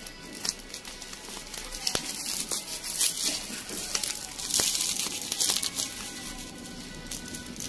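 Bubble wrap and packing tape crinkling and tearing as a parcel is cut and pulled open, with sharp scissor snips and two louder bursts of rustling, about two and four and a half seconds in. Soft background music underneath.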